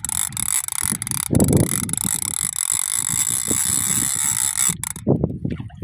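A large conventional (gold, lever-drag style) fishing reel running with a steady high mechanical whir of gears and pawl, stopping abruptly about five seconds in.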